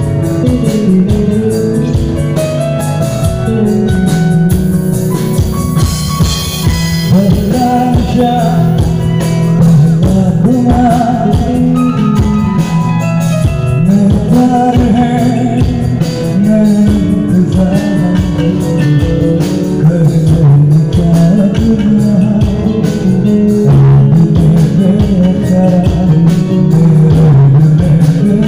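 Live rock band playing a Hindi pop song through a PA: drum kit, electric bass guitar and keyboards under a male lead singer, at a steady beat.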